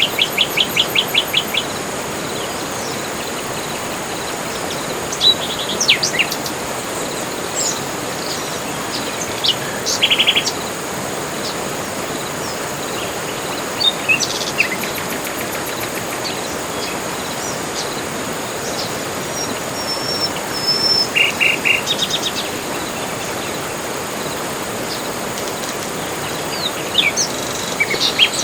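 Tropical forest birds calling. A rapid trill of about ten notes opens, then short calls and brief trills come every few seconds, over a steady background hiss and an even, high insect drone.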